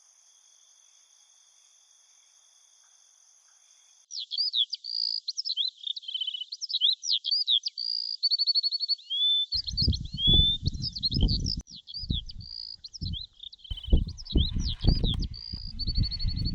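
A steady high insect chirring gives way, about four seconds in, to birds singing busily in chirps, quick trills and rising and falling whistles. From about halfway, irregular low thumps and rumbles sound under the birdsong.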